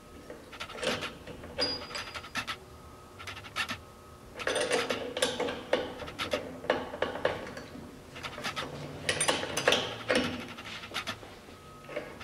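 Steel gears, shaft and shift fork of a 2015 Polaris Scrambler 1000 transmission clinking and scraping against each other and the aluminium case as they are fitted by hand: irregular clusters of small metallic knocks and rattles, busiest in the middle.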